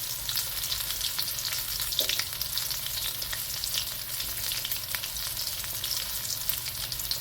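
Chicken pieces browning in hot oil in a pan: a steady sizzle with many small crackles and pops.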